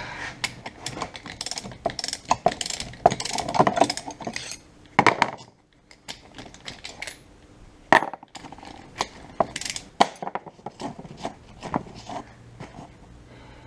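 Socket ratchet clicking in irregular runs as it undoes a differential pinion nut, mixed with sharp metal clinks and knocks, with a short pause a little past the middle. The nut turns off easily, which the owner suspects means it was not tight.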